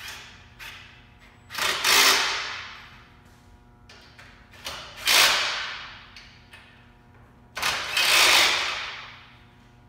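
Cordless drill/driver run in three short bursts, about 2, 5 and 8 seconds in, each starting suddenly and trailing off, driving fasteners into an aluminium frame. Small clicks between the bursts.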